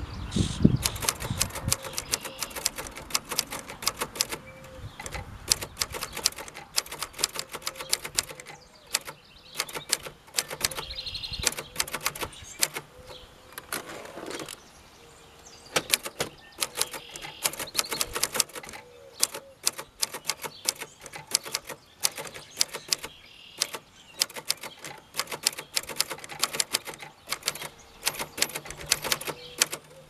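Manual typing on a 1967 Holland-made Royal Quiet Deluxe portable typewriter: keys and typebars clack in quick, irregular runs of sharp strikes, with short breaks between words and a longer pause about 14 seconds in.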